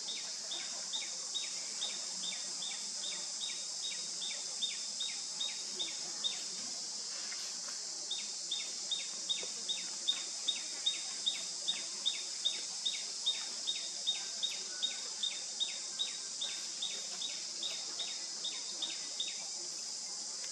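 Steady high-pitched drone of a tropical insect chorus, with a rapid series of short, high, slightly falling call notes repeating about two to three times a second, which break off briefly about seven seconds in and then resume.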